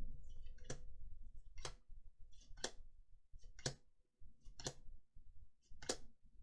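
Magic: The Gathering trading cards being flipped through one at a time, each card giving a crisp click, about one a second.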